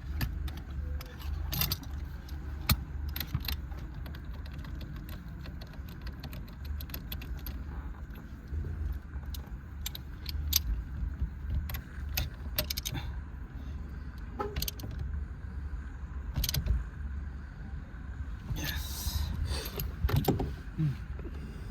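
Irregular sharp metallic clicks and clinks of hand tools and car parts being handled during reassembly after a car horn repair, with a longer rattle about three-quarters of the way through, over a steady low hum.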